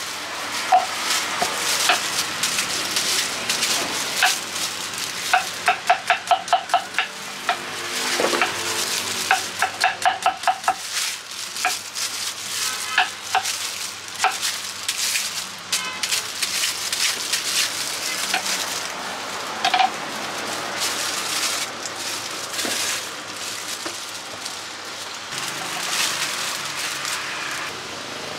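Crinkle-cut knife slicing guava on a wooden cutting board: repeated knife strokes knocking on the board, with two quick runs of rapid chopping at about five strokes a second, over a steady crackly hiss.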